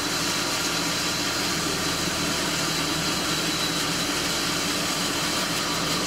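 Cook's sawmill engine running steadily at a constant pitch.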